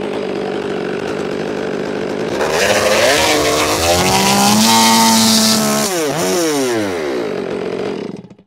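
Stihl two-stroke chainsaw idling, then revved up high with the bar clear of the wood and held for a couple of seconds. It drops back, is blipped once more, and is switched off near the end, cutting out abruptly.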